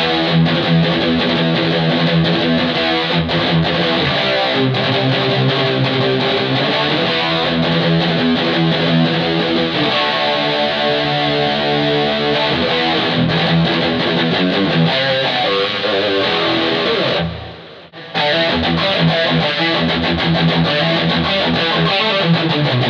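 Distorted electric guitar playing chords and riffs through a Gallien-Krueger 250ML combo amp's built-in speaker, driven by an Ibanez Metal Screamer pedal with a Boss NS-2 noise suppressor, with reverb and delay added. About three-quarters through, the playing stops abruptly for under a second, then resumes.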